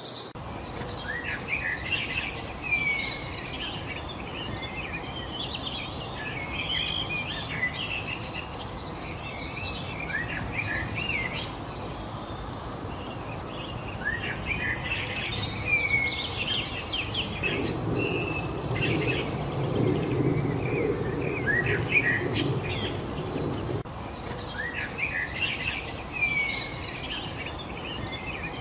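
Many songbirds chirping and trilling at once, a dense overlapping chorus over a steady background hiss. About seventeen seconds in, a low rumble comes in for some six seconds and then stops abruptly.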